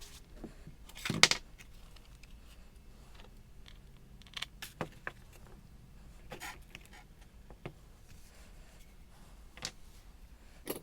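Scattered clicks and clinks of metal hand tools and parts being handled and set down, the loudest about a second in.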